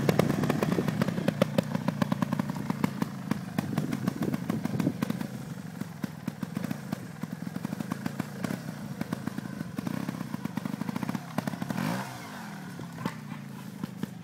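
Montesa trials motorcycle engine running and being revved in short blips as the bike rides off across the grass, growing quieter as it moves away; near the end the revs drop away in a falling tone.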